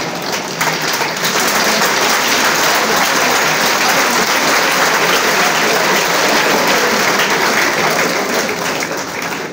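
Large seated audience applauding, a dense steady clapping that eases off slightly near the end.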